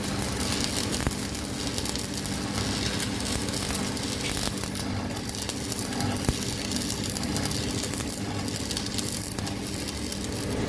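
Electric arc welding on a steel truck rim: a steady crackling sizzle of the arc, with a steady low hum underneath, starting abruptly at the beginning.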